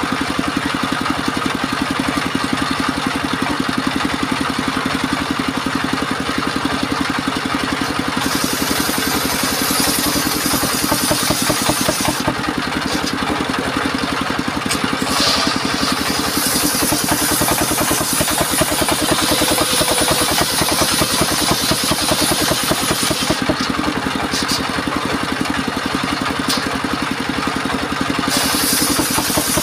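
Engine of a portable circular sawmill running steadily, with the circular blade cutting timber in three long stretches that add a high hiss over the engine.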